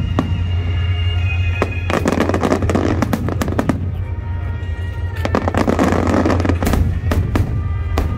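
Fireworks bursting and crackling in two dense flurries, one about two seconds in and another about five seconds in, over loud music with a steady deep bass.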